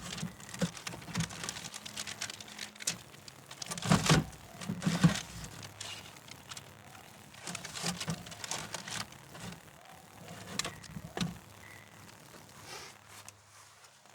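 Irregular rustling, crinkling and light tapping as strips of butyl tape are pressed and shaped around a hatch opening, loudest around four to five seconds in.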